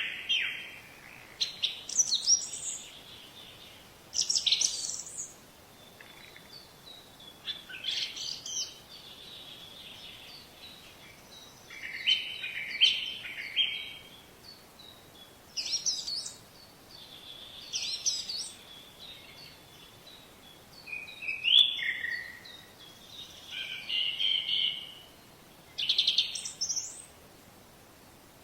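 Birds singing: short, high chirping phrases every two to four seconds, many made of quick falling notes.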